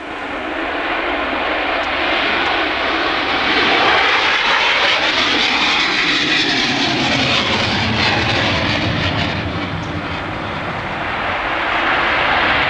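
F-4 Phantom II jet fighter's two J79 turbojets at full afterburner on the takeoff roll: a loud, steady jet noise. It builds over the first few seconds, sweeps in pitch about six seconds in as the jet passes, dips about ten seconds in, then builds again near the end.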